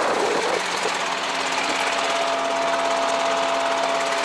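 Diesel engine of a Ponsse Buffalo forwarder idling steadily, heard close by, with a thin steady whine joining about a second in.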